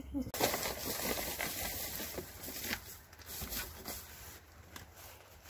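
Rustling and crackling of old straw bedding with vegetable scraps being tipped out of a chicken cage, loudest for the first few seconds, then a few lighter rustles.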